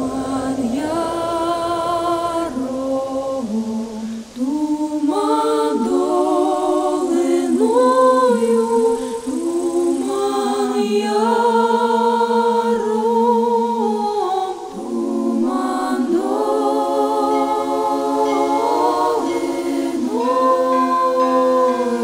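Choir singing a cappella: slow, held notes in several voices with vibrato, moving from chord to chord.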